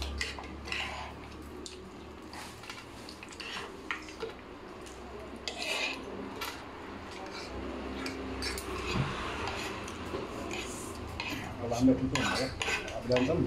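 Eating sounds: light clinks and scrapes of cutlery and dishes, scattered irregular clicks that grow busier near the end.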